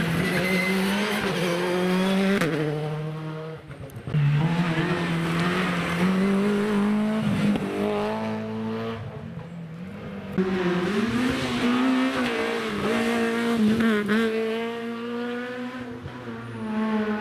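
Rally car engines running hard, the note rising and falling through gear changes. It dips about 4 s in and again around 9 s, then comes back louder just after 10 s.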